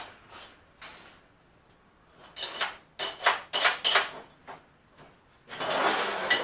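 Metal tools being handled in a workshop: a series of short clanks and rattles, then a longer burst of noisy handling near the end.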